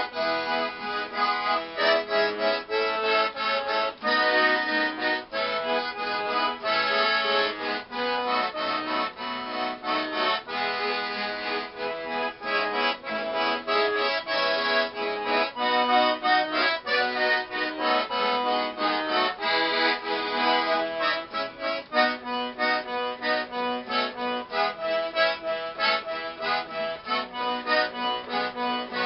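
Piano accordion (gaita) playing an old hymn tune as a lively instrumental, the melody and chords changing every fraction of a second, with an acoustic guitar strumming along beneath it.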